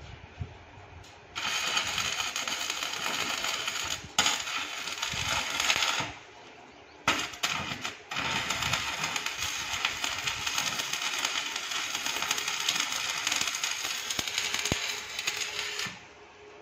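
Stick (arc) welding on steel bars: the electrode's arc crackling and sizzling in several runs, short ones with brief breaks in the first seven seconds, then one long steady run of about eight seconds that stops near the end.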